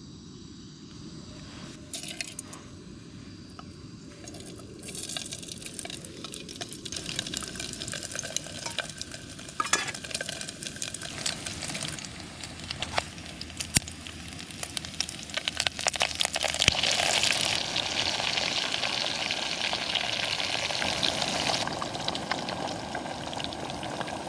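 Bacon, sausages and eggs frying in ghee in a small pot on a camping gas stove: a sizzle that builds over the first few seconds and grows louder past the middle, with scattered clicks and taps.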